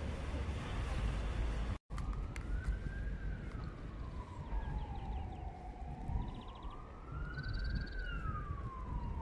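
A siren wailing: one tone slowly rising and falling, about five seconds per cycle, starting about two seconds in after a brief dropout, over a steady low rumble.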